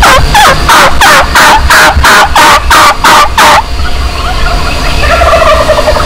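A turkey hunter's locator call blown close by: a rapid run of about eleven loud, harsh calls, each falling in pitch, about three a second, for about three and a half seconds. It is meant to strike up a gobble from roosting turkeys. Fainter wavering calls follow.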